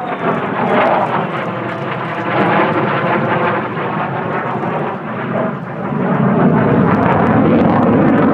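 Jet noise from an F-35A Lightning II's single F135 afterburning turbofan in flight during a demo display, loud throughout and growing louder about six seconds in.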